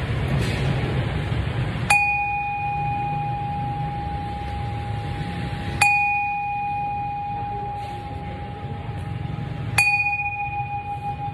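Buddhist bowl bell struck three times with a wooden striker, about four seconds apart, each stroke ringing on in a clear, long-sustained tone that slowly fades, over a low steady rumble.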